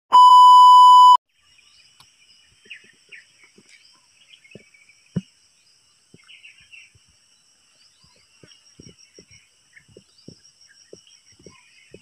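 Test-tone beep over colour bars: one loud, steady, high pure tone lasting about a second, cut off sharply. Then faint outdoor ambience with thin high steady whining and scattered soft ticks.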